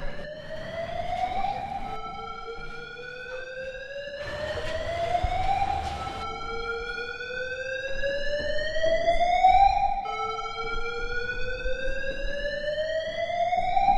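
A siren wailing in slow rising sweeps: each one climbs steadily for about four seconds, then drops back abruptly and starts over, about three times. A stretch of hissing noise runs under it around four to six seconds in.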